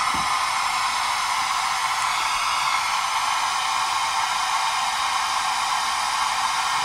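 Pink noise test signal played through loudspeakers and picked up by room microphones: a steady, even hiss with little bass.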